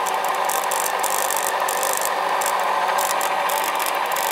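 Rotary inverter, a brushed motor-generator, running steadily: an even hum with a rubbing, chattering hiss from its brushes on the commutator. The owner puts this noise down to brushes that need cleaning.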